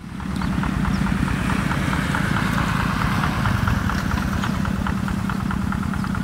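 An engine running steadily with a rapid, even pulse and a low hum, fading in at the start.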